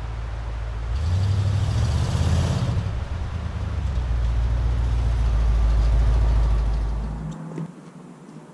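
Low engine rumble of a passing heavy vehicle such as a truck, with a brief hiss early on; it grows louder, then cuts off abruptly about seven seconds in.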